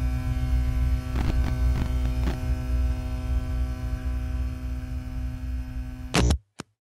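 Electrical buzz of a neon sign: a steady low hum with a few faint crackles, ending in two sharp clicks about six seconds in as it cuts out, then one last click.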